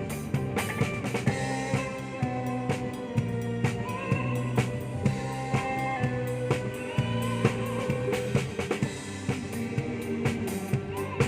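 Live band playing, with the drum kit up front: regular snare and bass drum hits over bass and melody instruments.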